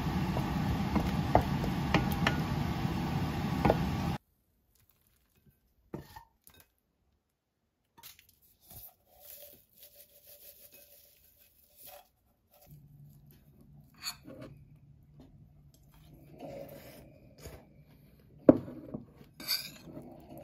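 A wooden spatula stirring and scraping onions and egg around a stainless-steel pan, a dense rubbing sound with many sharp clicks that cuts off about four seconds in. After that, faint scattered clicks and rustles, then a few sharp clinks of a spoon scraping a ceramic bowl near the end, a sound described as uncomfortable.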